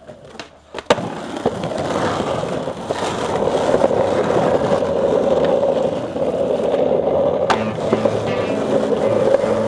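Skateboard wheels rolling on a rough asphalt street, a loud steady rolling noise, with a sharp clack of the board about a second in and another near the three-quarter mark.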